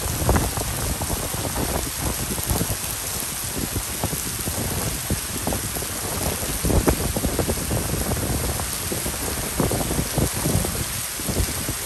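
Heavy tropical downpour: a steady, dense hiss of rain falling on wet paving, with many close drops spattering throughout.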